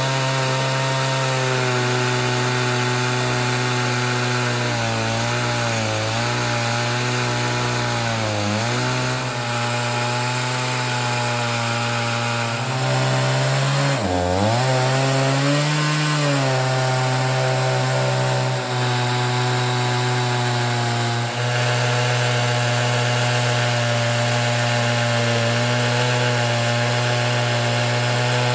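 Two-stroke chainsaw on an Alaskan chainsaw mill, ripping lengthwise through a large pine log at high revs under load. The engine holds a steady pitch, dipping and recovering a few times as the cut loads it, over the rasp of the chain in the wood.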